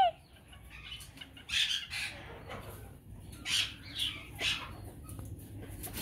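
Caged chickens making a handful of brief, soft rustles and low squawks, spread out over several seconds, from a hen fluffed up and ready to lay an egg.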